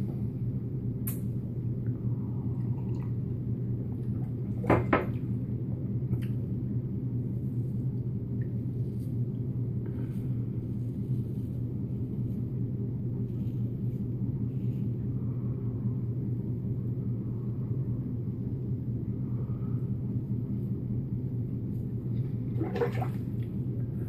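Faint scraping of a vintage Gillette Tech safety razor with a Feather blade cutting stubble on an against-the-grain pass, over a steady low hum. There is a short vocal sound about five seconds in.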